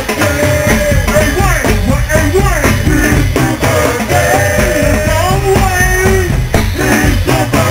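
Go-go band playing live: a loud, bass-heavy groove with dense percussion and a voice singing over it.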